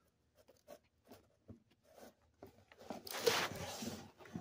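Comic books being handled: a few faint taps and paper rustles, then, about three seconds in, a louder rustling slide of paper as a comic is drawn off the stack.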